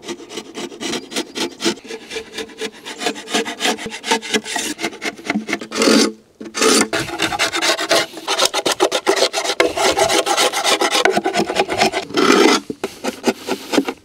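A metal hive tool scraping propolis and wax off a wooden beehive box in quick, repeated strokes, with a short break about six seconds in.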